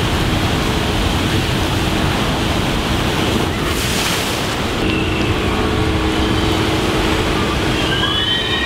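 Water rushing and churning at the foot of a spinning raft water slide, with a heavier splash about four seconds in as a raft hits the pool. A steady low hum joins at about five seconds.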